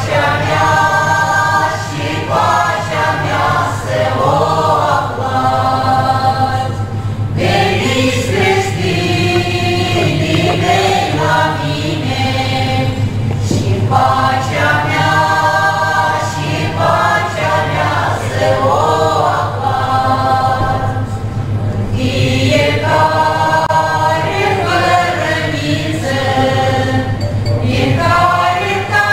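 Mixed choir of women's and men's voices singing a sacred song in harmony, in long phrases with short breaks between them, accompanied by an accordion.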